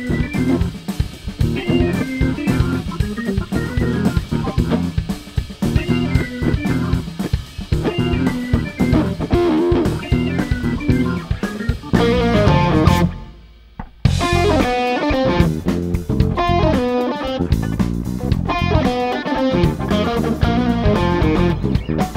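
Live instrumental band of electric guitar, drawbar organ (a KeyB Duo Hammond clone), bass guitar and drum kit playing a busy up-tempo groove. About thirteen seconds in the band breaks off together for about a second, then comes straight back in.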